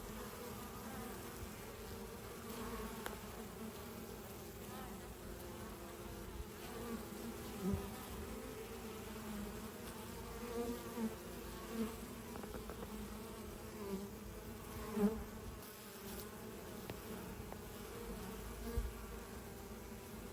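Honeybees buzzing in a steady hum around the hive as foragers fly in loaded with pollen, the sound of a busy, strongly foraging colony. Brief louder buzzes rise and fall now and then.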